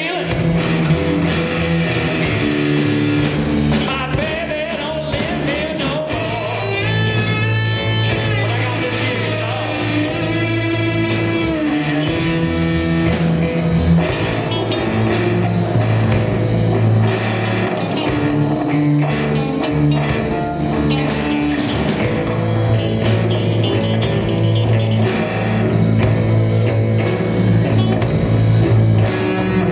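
Live amplified rock band playing: electric guitars, bass guitar and drum kit, with a singing voice.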